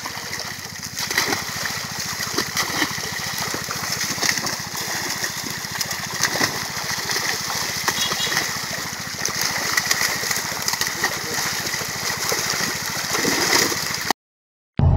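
Water splashing and churning as a net crammed with fish is worked in a pond, the fish thrashing and leaping at the surface with many short crackling splashes. It stops suddenly shortly before the end.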